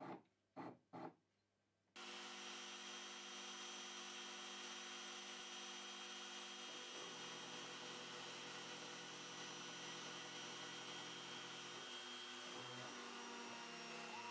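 Three short clicks, then about two seconds in a small CNC mill starts running: a steady hum with several whining tones over a high hiss as a small end mill cuts into a green plastic sheet. The lower tones change pitch a couple of times as the machine moves.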